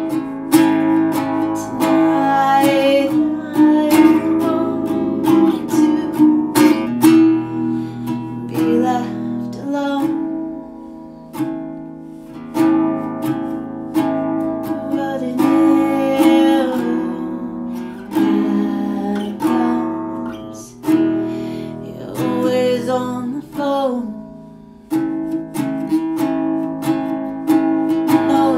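Music: acoustic guitar strummed and plucked, with a singing voice at times.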